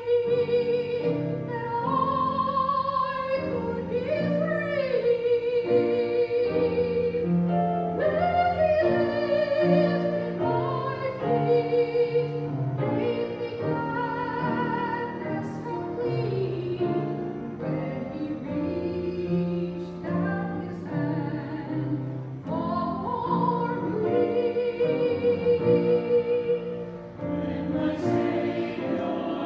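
Singing over instrumental accompaniment: long held vocal notes with vibrato above a slow-moving bass line.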